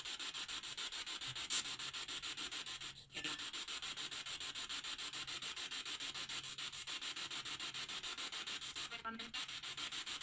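Hiss of radio static pulsing rapidly and evenly, from a spirit box sweeping through radio stations; a brief pitched blip sounds near the end.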